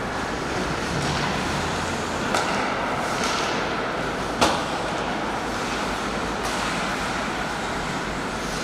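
Ice hockey rink during play: steady arena noise with a few swishing scrapes and one sharp puck crack about four and a half seconds in, with a smaller knock a couple of seconds before it.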